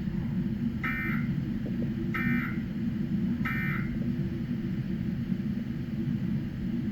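Emergency Alert System end-of-message data tones: three short bursts about 1.3 seconds apart, marking the end of the alert. A steady low hum runs underneath.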